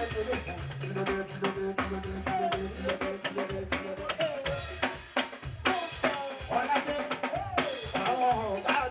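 Music with a steady drum-kit beat, snare and bass drum strikes over a bass line, and a melody line above.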